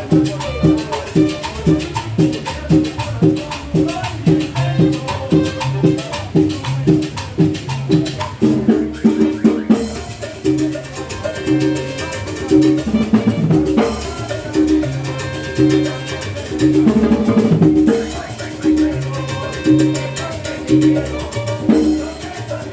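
Latin dance music, in the salsa style, with drums and a steady, even beat.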